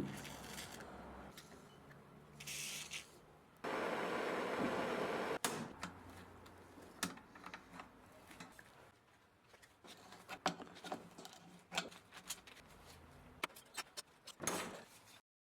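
Hand restoration work on an old metal noodle machine: a loud steady rasping noise for about a second and a half, then an irregular run of light clicks and knocks from tools and parts being handled.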